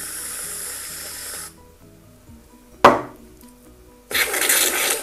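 Aerosol whipped-cream can spraying in two bursts: a steady hiss for about a second and a half, then a rougher, sputtering one near the end. A single sharp knock falls between them, over light background music.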